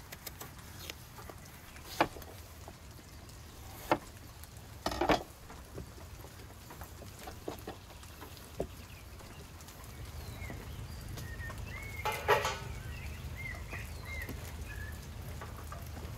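Kitchen knife knocking and tapping on a wooden cutting board as an eggplant is peeled and sliced into rounds: a few sharp knocks with lighter taps between. Birds chirp briefly near the middle.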